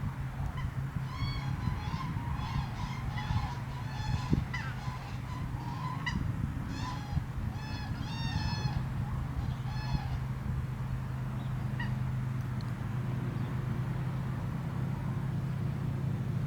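A flock of wild geese honking, many short calls overlapping through the first ten seconds and then only a few. A steady low hum runs underneath.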